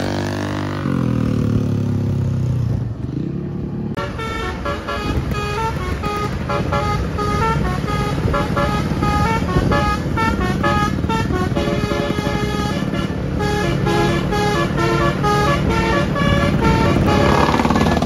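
Basuri telolet horn on a Tunggal Jaya 'Kids Panda' tour bus playing: sliding tones at first, then from about four seconds in a fast tune of short, repeated notes. Under it, the steady rumble of the bus and motorcycle engines.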